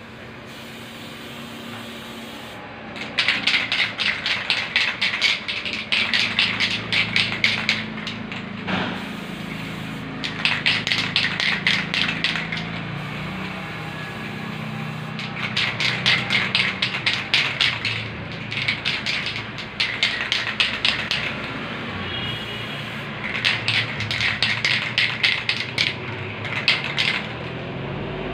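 Aerosol spray paint can (Pylox-type) hissing in bursts of two to three seconds, each made of rapid short puffs, about seven bursts with short pauses between.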